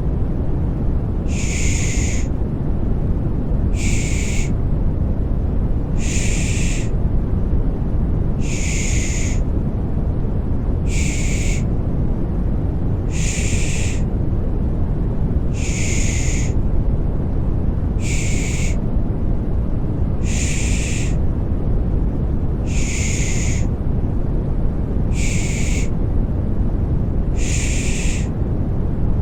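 Rhythmic 'shh' shushing for lulling a baby to sleep, a hissy shush repeating about every two seconds, alternating slightly longer and shorter, over a steady deep white-noise bed.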